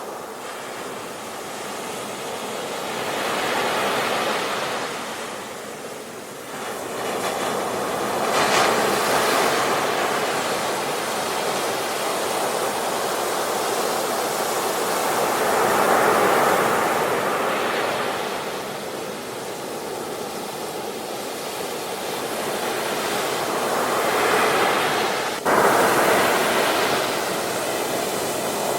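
Sea waves breaking on the shore, the surf rising and falling in slow swells every few seconds, with a sudden jump in loudness near the end.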